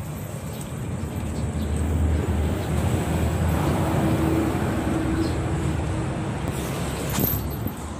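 A motor vehicle passing on a nearby road: engine and road noise swell about a second in, stay loud with a steady hum for several seconds, then ease off near the end.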